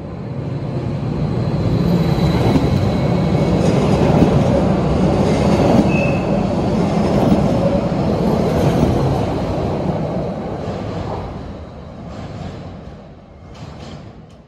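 MÁV class 415 Stadler FLIRT electric multiple unit passing close by, its wheels running over the rails. The sound builds over the first couple of seconds, holds while the cars go past, then fades away near the end.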